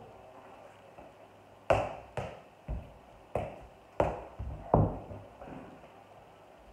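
Soccer ball thudding: about seven sharp knocks spread over three seconds, starting about two seconds in, then one fainter knock.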